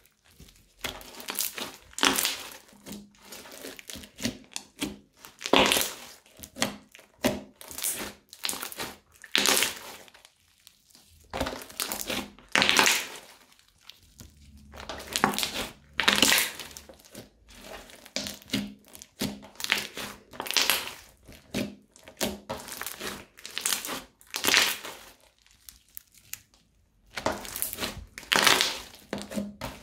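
Hands kneading, stretching and folding crunchy slime studded with small beads: repeated crunching and crackling in uneven bursts, a loud one every second or two.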